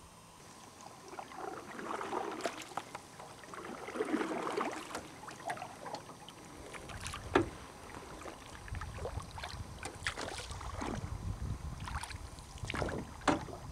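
Sounds on board a small fishing boat on open water: water against the hull and handling noises, with two sharp knocks, one about seven seconds in and one near the end, louder than the rest. Wind rumbles on the microphone during the second half.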